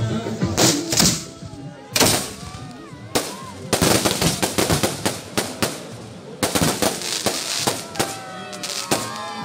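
Aerial fireworks going off: a quick series of bangs and crackling shell bursts, coming in clusters and densest from about four to nine seconds in.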